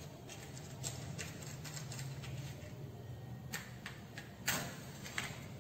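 Light, scattered clicks and a short scrape about four and a half seconds in, from hands lighting the burner to heat the test tube, over a low steady hum.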